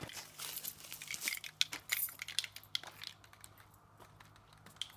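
Footsteps crunching through dry leaves and grass, close at first and fading out after about three seconds as the walker moves away.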